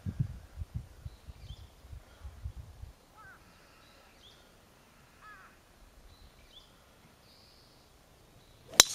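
Near the end, a single sharp crack as a Callaway Legacy Aero driver strikes a golf ball off the tee. Birds chirp faintly throughout, and there are low thumps in the first three seconds.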